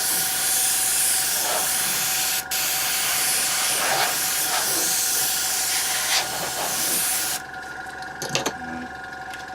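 A jet of air hissing steadily as dust is blasted out of an opened iPad 2's frame before the new digitizer screen is fitted. It breaks off for an instant about two and a half seconds in and stops about seven and a half seconds in.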